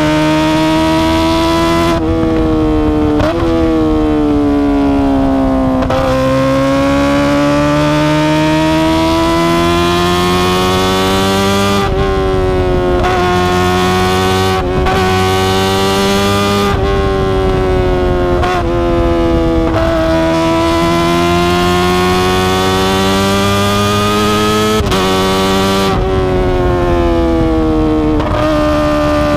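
Kawasaki ZX-25R's 249 cc inline-four engine through an Akrapovic exhaust while riding, its pitch climbing steadily in each gear and dropping sharply at each of about ten gear changes, with a falling stretch early on where it eases off.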